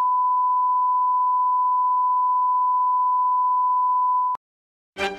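Broadcast test tone of the kind played with TV colour bars: one steady, pure 1 kHz beep that cuts off suddenly about four seconds in. After a moment of silence, music begins just before the end.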